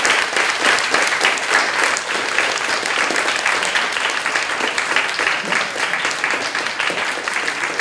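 A small audience applauding steadily, a dense patter of clapping that eases slightly toward the end.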